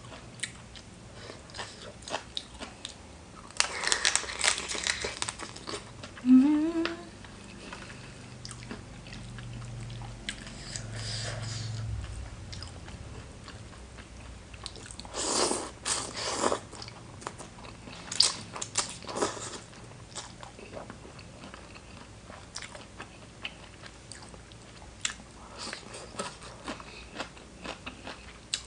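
Close-miked biting, crunching and chewing of crunchy food, eaten loudly in the manner of an eating show. The crunches come in clusters, with the loudest runs a few seconds in and again around the middle. About six seconds in there is a short, loud rising squeak.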